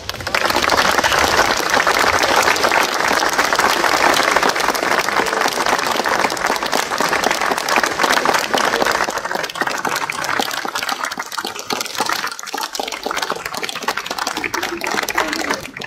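Audience applauding: many hands clapping, starting abruptly and thinning out over the last few seconds.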